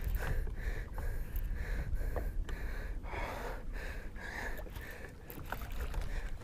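Fast, heavy breathing of an angler straining against a big bass on the rod, with wind rumbling on the microphone.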